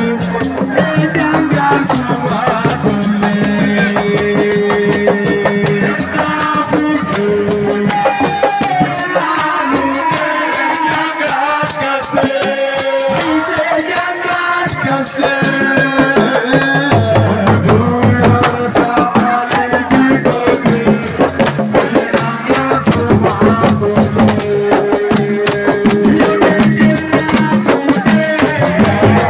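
Assiko band music: shakers and drums keep a fast, busy rhythm under held melodic notes, with some singing. Deeper bass notes join a little past halfway.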